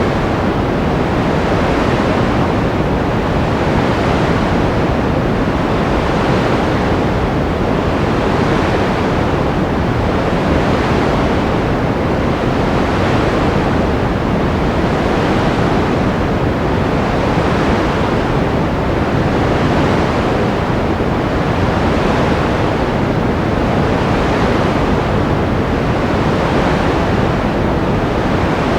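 Steady rushing noise from a white-noise sleep track, heavier in the low end than pure hiss. Its upper hiss swells and fades gently about every two seconds.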